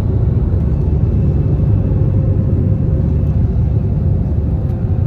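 Cabin noise inside an Airbus A320 airliner as it departs: a loud, steady rumble of the jet engines and airflow.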